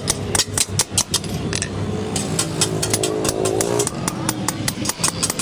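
Repeated hammer blows on metal, about three to four sharp strikes a second, easing off in the middle. An engine runs behind them and rises in pitch about two-thirds of the way in.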